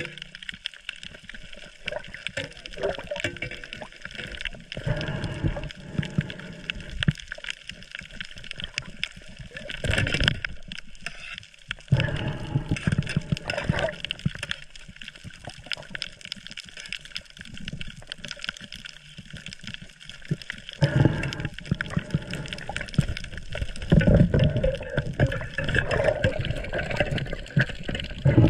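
Muffled water noise picked up by a camera underwater: irregular gurgling and sloshing, with scattered clicks and knocks from hands handling the speared fish and stringer.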